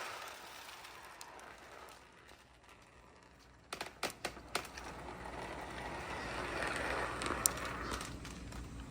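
Marbles rolling on a wooden marble run, the rolling dying away, then four or five sharp clicks of marbles knocking together and a softer rolling swell with one more click near the end.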